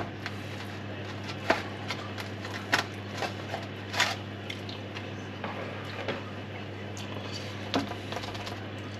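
Metal spoon scooping and pressing soft mashed potato filling into baked potato skins on a metal baking tray: a scattering of short clicks and scrapes, a few seconds apart, over a steady low hum.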